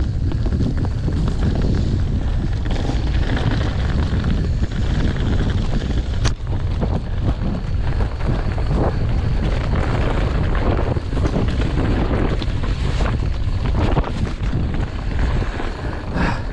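Heavy wind buffeting a chest-mounted camera's microphone during a fast mountain bike descent, over the steady rumble of tyres on a loose, dusty dirt trail. There is a sharp click about six seconds in.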